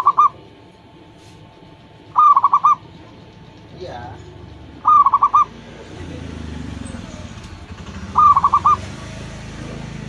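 Zebra dove (perkutut) cooing: repeated short calls of four or five quick, clear notes, about every three seconds. Each call stands out loudly over the background.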